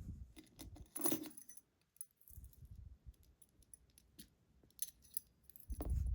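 Small metal lock parts and tools clicking and clinking as a lock is handled and reassembled on the bench, with one brighter metallic clink about a second in and low handling bumps at the start and near the end.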